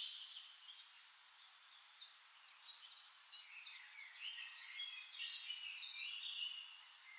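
Birds chirping faintly: many short, high chirps and whistles overlapping, busier in the second half.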